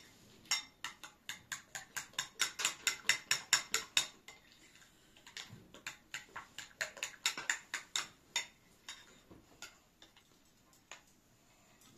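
Metal spoon clinking rapidly against a ceramic bowl as something is stirred briskly, about five clinks a second. There are two runs of stirring with a short pause between them, and the second run tapers off.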